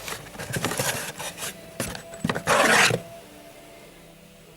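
Handling noises: irregular rubbing and scraping of a part or its packaging being moved about, with the loudest scrape about two and a half seconds in. After that only faint room tone.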